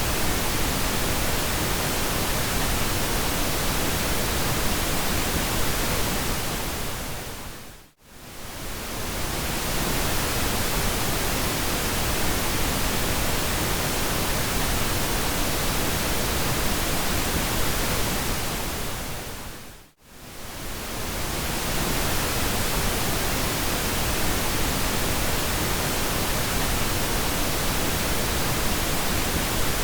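Steady synthetic pink noise: an even, full-range hiss, deeper than white noise. Twice, about 8 and 20 seconds in, it fades briefly to near silence and swells back.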